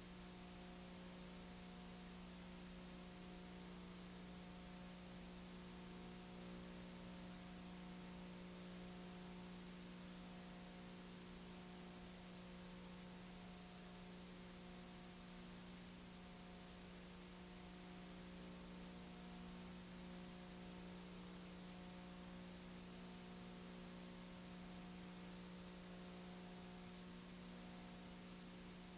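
Near silence apart from a steady electrical hum and a faint hiss, with no change throughout.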